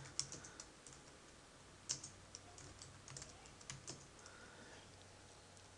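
Computer keyboard being typed on: a scattered run of faint key clicks that stops about four seconds in.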